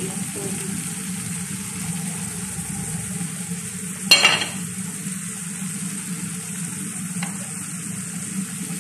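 Shrimp fajita filling in sauce sizzling steadily in a nonstick frying pan, with one sharp knock of the wooden spoon against the pan about four seconds in.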